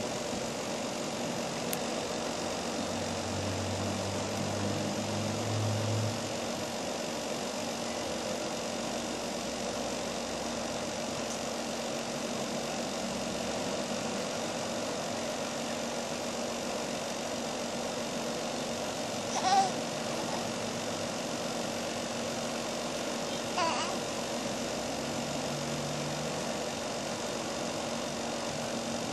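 A steady mechanical drone with hiss, with two short high-pitched vocal sounds from the baby about two-thirds of the way through, the first louder.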